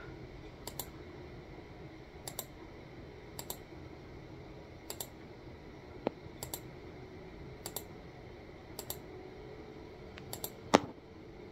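Computer clicking while moving through web pages: sharp clicks, mostly in close pairs, every second or so, with one louder knock near the end.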